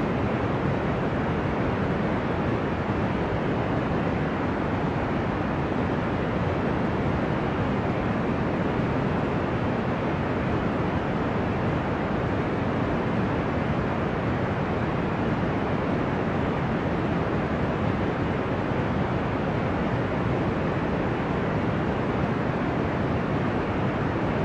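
Deep, ocean-like white noise: an even, steady rushing hiss, weighted low with little top end, holding one level without swells or breaks.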